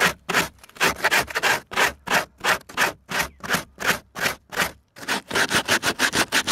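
Sandpaper rubbed by hand on foam in quick back-and-forth strokes, each a short scratchy rasp, about three to four a second, getting faster near the end.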